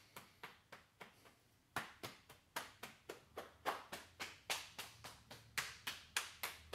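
Open hands patting the body over cotton clothing in a qigong self-patting routine down the back and legs. A few faint pats and a short lull come first, then steady pats at about three a second.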